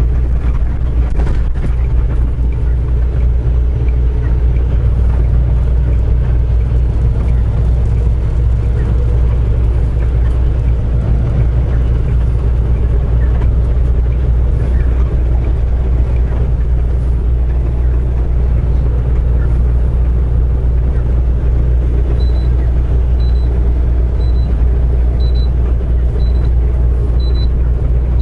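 Semi truck's engine and road noise heard from inside the cab while cruising, a loud, steady low rumble. Near the end a faint high beep starts repeating about once a second.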